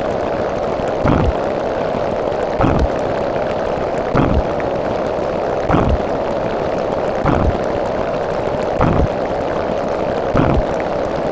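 Steady rushing noise with a dull thump repeating about every one and a half seconds.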